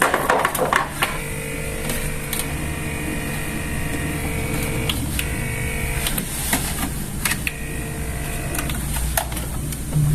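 A few handling clicks, then a steady mechanical buzz that drops out briefly several times.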